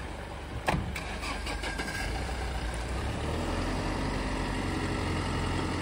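Mahindra Bolero diesel engines running under load as the two SUVs pull against each other on a tow strap; the engine note rises about two seconds in and then holds steady. A single sharp knock comes just under a second in.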